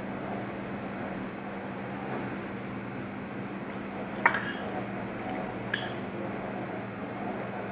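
Metal spoon clinking twice against a ceramic plate while scooping food, about four and six seconds in, over a steady low background hum.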